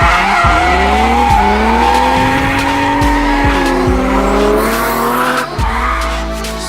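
Car engine revving up and down under hard driving while the tyres squeal in a drift, with background music underneath.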